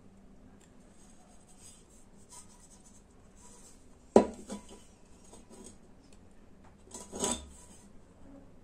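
A small copper bowl knocked rim-down against a tabletop twice, a sharp knock about four seconds in with a short ring and a weaker one about three seconds later, tapping out old ash and debris.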